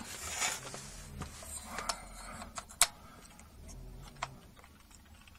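Hands handling a small circuit board and its cables: light rustling with a few sharp little clicks and taps, the loudest a little under three seconds in.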